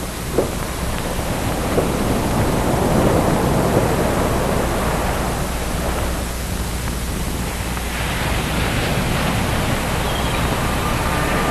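Ocean surf washing onto a beach: a steady rush of waves that swells about three seconds in and again near the end, with two short knocks in the first two seconds.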